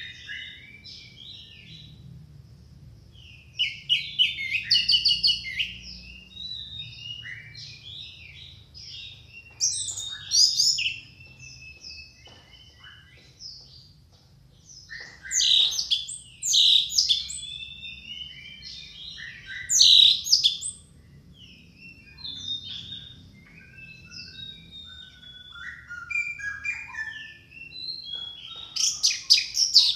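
Orange-headed thrush singing a long, varied song of rapid chirps, trills and whistles, said to be full of mimicked calls. Loud bursts come every few seconds, with softer notes between them.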